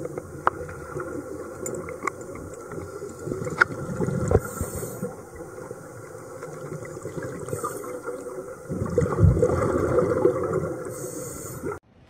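Underwater sound of a scuba diver breathing through a regulator, exhaled air bubbling out in swells with scattered small clicks. The longest and loudest exhale comes about nine seconds in, and the sound cuts off suddenly near the end.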